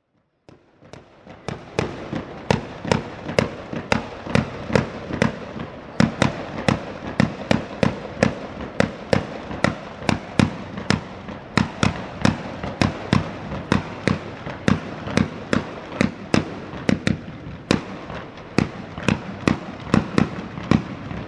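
Ligurian mortaletti, small ground-fired black-powder charges, going off in a rapid continuous volley of loud bangs, about two or three a second. A steady hiss runs between the bangs. The volley builds in over the first second or so.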